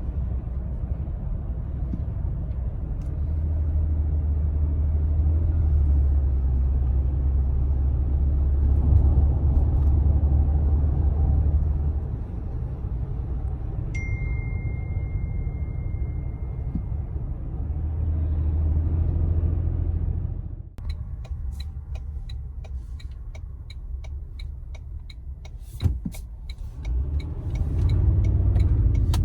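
A Toyota pickup driving, heard from inside the cab: a steady low road-and-engine rumble that swells and eases. Midway there is a single high beep lasting a few seconds. In the last third the rumble drops, and a regular clicking sounds about twice a second before the rumble builds again near the end.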